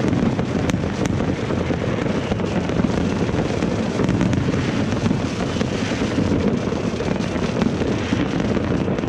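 Many distant fireworks going off at once, their bangs merging into a continuous low rumble, with scattered fainter sharp cracks.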